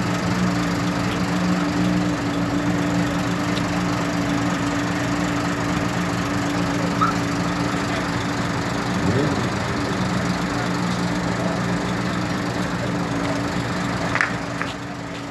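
Diesel engine of a large cargo truck idling steadily.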